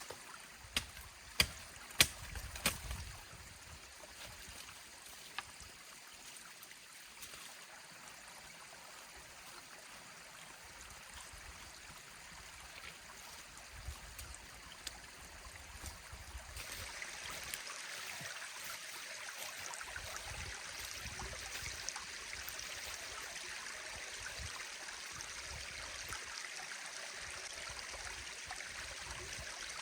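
Small forest stream flowing steadily over stones, turning abruptly louder and brighter about halfway through. A few sharp knocks come in the first three seconds.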